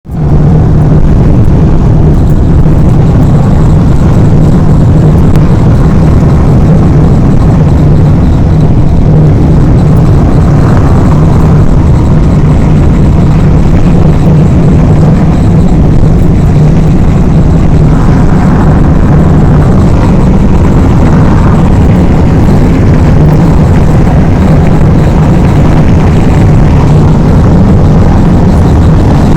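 Mercedes-Benz A-Class running, a loud steady low rumble, with brief higher patches about ten seconds in and again around eighteen to twenty-two seconds.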